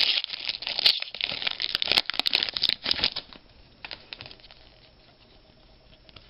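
Plastic wrapper of a trading-card pack crinkling and tearing as it is opened by hand, a dense crackle that stops about three seconds in.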